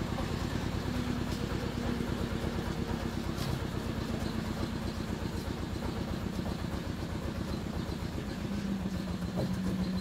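A small engine running steadily, with a rapid even pulsing beat throughout.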